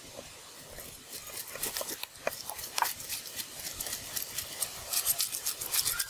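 Cleaver blade scraping scales off a whole fish lying on a slab of bark, in quick repeated strokes. The strokes start about a second in and grow louder and faster toward the end.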